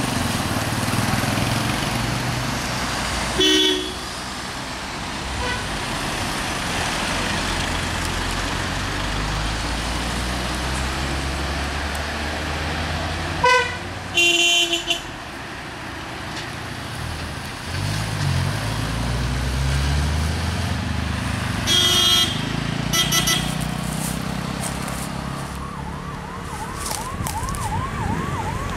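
Traffic on a hairpin bend of a mountain ghat road: car, motorcycle and bus engines passing, with several short horn toots. Near the end a siren-like warbling tone begins, rising and falling about three times a second.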